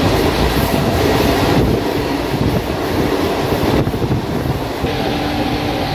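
Electric suburban train running, heard from inside the carriage: a steady rumble and rattle. About five seconds in, a steady whine joins it.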